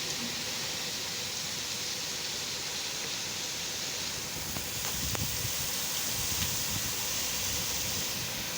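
Heavy rain falling steadily in a storm, a continuous hiss, with wind buffeting the microphone from about five seconds in.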